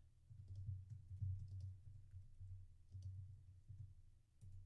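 Faint computer keyboard keystrokes clicking irregularly as a command is typed, over a steady low hum.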